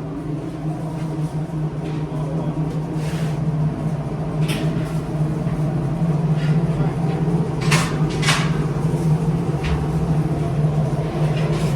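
Steady low drone of a car heard from inside the cabin while driving, with a few sharp clicks and knocks, two close together about eight seconds in.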